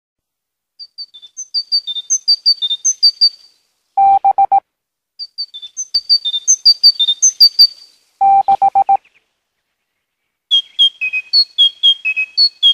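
Electronic chirping: quick runs of short, high beeps hopping between a few fixed pitches. The same run plays twice, each time followed by a brief lower buzzing tone that pulses rapidly. A different, slightly lower run of beeps starts near the end.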